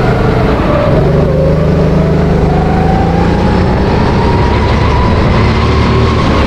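Honda GX270 single-cylinder four-stroke engine of a SodiKart RT10 go-kart running under load, its pitch dipping briefly about a second in and then rising steadily as the kart accelerates.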